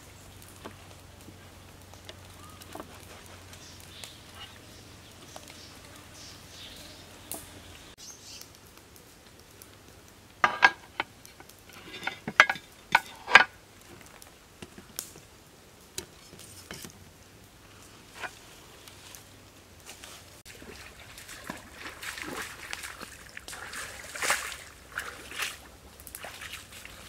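Handling sounds of raw beef and bitter melon being worked on a plate, with a cluster of sharp knocks and clicks about halfway through. Near the end, splashing and steps in shallow water as the plate is carried through a stream.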